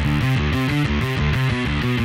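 Background rock music with a driving electric guitar and bass riff.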